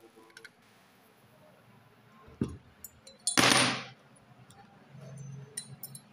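Workbench handling noises as a small motorcycle cylinder head is turned over by hand: a dull knock about two and a half seconds in, then a loud half-second rush of noise, and a few faint clicks near the end.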